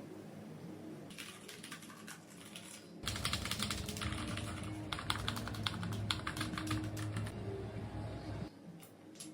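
Typing on a ZIFRIEND T62 keyboard: keys clack in quick runs, sparse at first and then dense from about three seconds in, stopping near the end.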